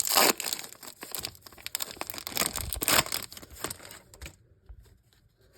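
Wrapper of a Topps Chrome Update baseball card pack being torn open and crinkled: a dense run of crackling that dies away about four seconds in.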